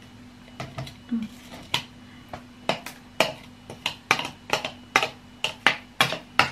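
Metal spoon clinking and scraping against a glass chopper bowl while stirring and scooping out ground spice paste: irregular sharp clinks, sparse at first, then two or three a second in the second half.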